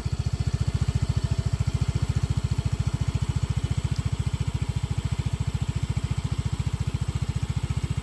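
Small automatic scooter engine idling steadily, a rapid even beat of about a dozen pulses a second that neither rises nor falls.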